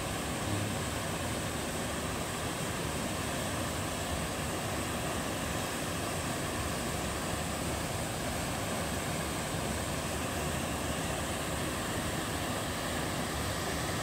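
Small mountain waterfall cascading into a rock pool, a steady, even rush of water.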